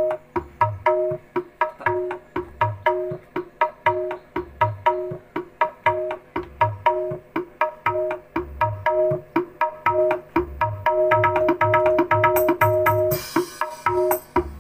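Music with a steady drum-and-bass beat, about two bass hits a second, played loud through a home PA rig: a single 18-inch JIC LS18100 subwoofer in a scoop box with two 12-inch ACR 1240 mids in line-array boxes and tweeters.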